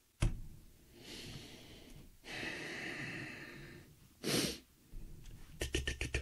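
A short knock at the start, then a man breathing out audibly in long hissy breaths and puffs through pursed lips, ending in a quick run of about six short puffs.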